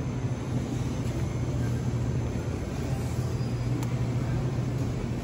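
Steady low hum and rumble of supermarket background noise near the refrigerated display cases, with one faint tick just before four seconds in.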